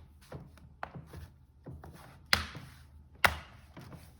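Plastic laptop cover being fitted back onto an Acer Aspire laptop: a few light clicks, then two louder hard knocks about a second apart as it is set down and pressed into place.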